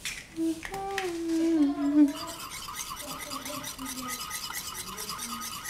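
A voice humming a few notes, then a wire whisk beating a fresh egg yolk into mayonnaise in a bowl, its wires scraping the bowl in quick, even strokes from about two seconds in.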